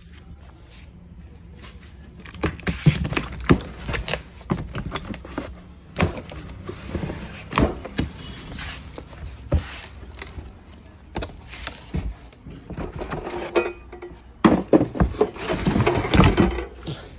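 Unboxing a Bosch GCO 220 cut-off machine: irregular knocks, clatter and rustling of packaging as the machine and its parts are handled. The noise starts about two seconds in and grows busiest near the end.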